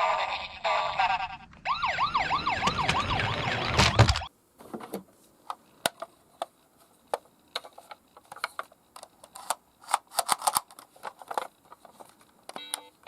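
Electronic toy emergency-vehicle sirens sounding a fast repeating yelp, about three rising sweeps a second, with two sirens overlapping briefly; they cut off suddenly about four seconds in. After that come scattered light plastic clicks and knocks.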